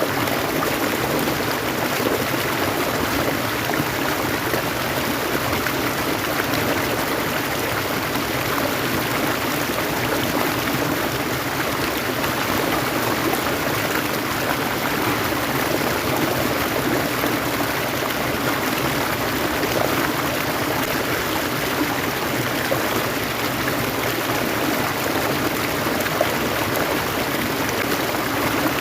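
Steady rush of flowing stream water, unchanging throughout.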